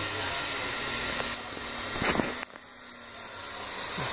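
Dual X carriage 3D printer running, its fans and stepper motors making a steady whirring hum as both print heads move out to start a duplicated print. The sound drops suddenly about two and a half seconds in, then slowly builds back.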